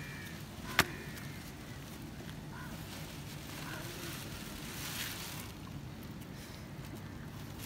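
Steady low outdoor rumble of harbour background with faint distant voices, broken by one sharp knock just under a second in.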